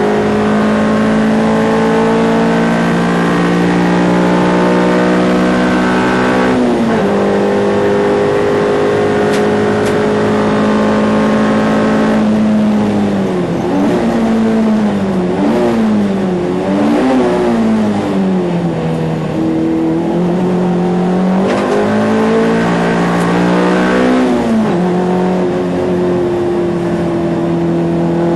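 Ford Fiesta race car's engine heard from inside the car under hard driving: it pulls steadily and drops sharply in pitch at an upshift about six seconds in. Around the middle the engine note swings down and up several times, like downshifts under braking, then it pulls up again with another upshift near the end.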